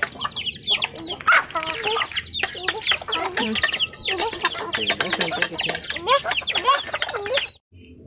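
A flock of village country chickens and their chicks calling together: many rapid, high, downward-sliding peeps mixed with clucking. It cuts off suddenly near the end.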